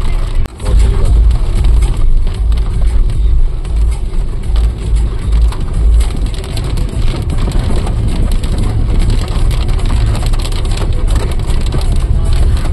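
Car driving on a wet road, heard from inside the cabin: a steady low rumble of engine and tyres under an even hiss of rain and spray.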